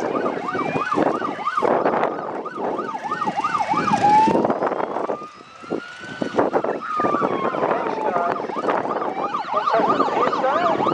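Several emergency-vehicle sirens sounding together from a convoy of CFA fire trucks and a lead utility vehicle responding. Fast yelp sirens, several sweeps a second, overlap slower wail sirens that rise and fall; the sound dips briefly about halfway through, then builds again.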